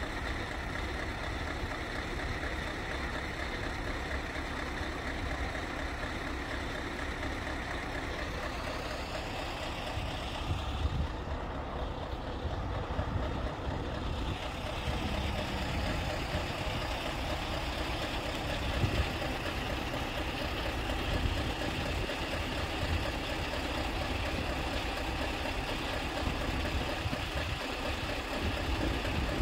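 Road vehicles, including a lorry, idling as they wait at the closed level-crossing barriers: a steady low rumble with no sharp events.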